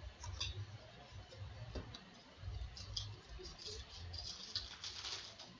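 Baseball trading cards being handled and shuffled, with small clicks and taps. About three and a half seconds in, a plastic card-pack wrapper is torn open and crinkled.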